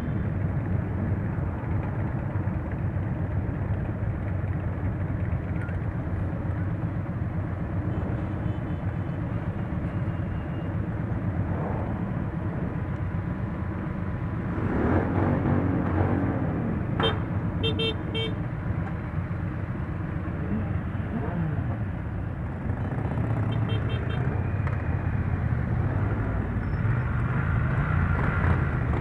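Many motorcycles riding together: a steady run of engine and road noise, with a swell of revving about halfway and a few short horn toots just after it.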